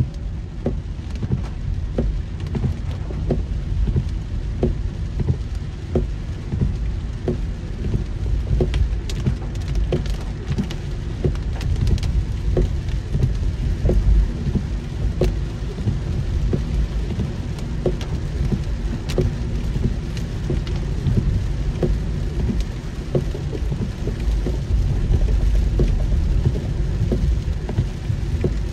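Heavy rain falling on a car, with many separate drops ticking against it over a steady low rumble.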